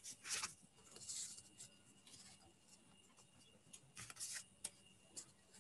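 Near silence with a few faint, brief rustles of paper cards being handled on a desk.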